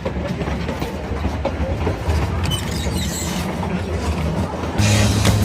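Running noise of a Durango & Silverton narrow-gauge railroad car: a steady rumble with the clickety-clack of wheels over the rail joints. Near the end a louder steady hum with hiss sets in.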